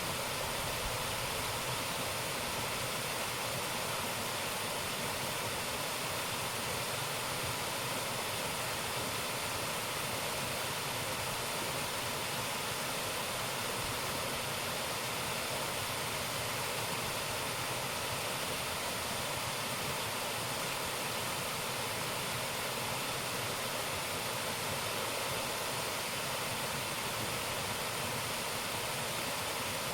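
Waterfall rushing: a steady, even roar of falling and splashing water.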